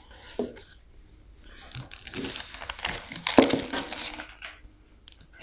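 Irregular kitchen clatter and rustling from food being prepared, with a loud sharp clatter about three and a half seconds in.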